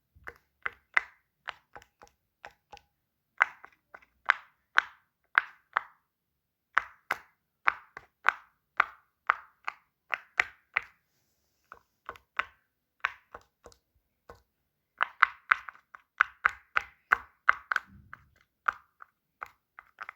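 Fidget toy being clicked: a fast, irregular run of short, sharp clicks, several a second in bursts, with brief pauses between the bursts.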